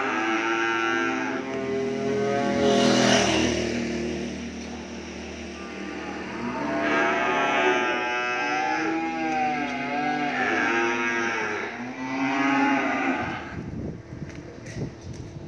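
Cattle mooing repeatedly, several long drawn-out calls, some overlapping.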